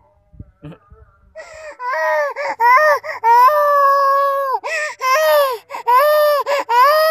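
A toddler crying hard. After a quiet pause of about a second and a half, she breaks into loud wailing: a run of short, broken sobs, one longer held cry, then more choppy sobs with catches of breath between them.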